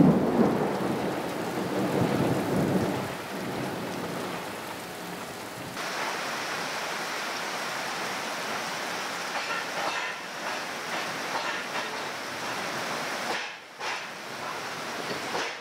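Thunder rumbling over the first few seconds. From about six seconds in, heavy rain falls steadily, a dense hiss with scattered patter.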